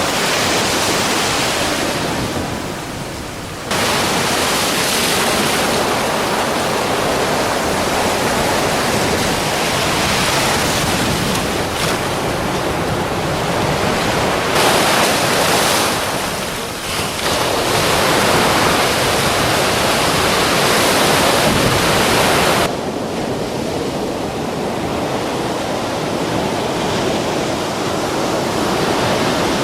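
Sea waves surging and breaking on the shore, with wind buffeting the microphone. The sound changes abruptly several times, dropping or swelling suddenly.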